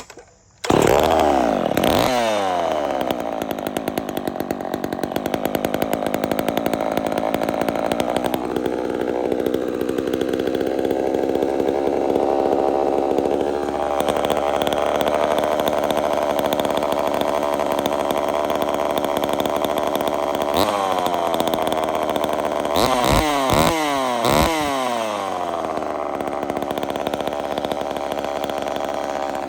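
Old Homelite two-stroke chainsaw starting with extra choke and catching about a second in, then running steadily. Near the end it is blipped up and down several times in quick succession before settling back.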